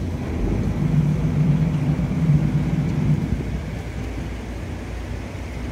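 Canal tour boat's engine running with a low rumble; a steady hum swells about a second in and fades after about three seconds as the boat works the water.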